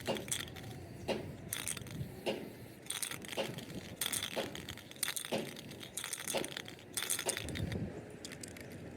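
Metal tapping and clinking: a series of sharp, ringing metallic strikes, about two a second and somewhat irregular, over a low background hum.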